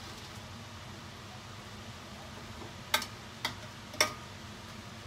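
A metal spoon knocks three times against a stainless steel pot while noodles are stirred, the knocks about half a second apart in the second half, over a steady low hum.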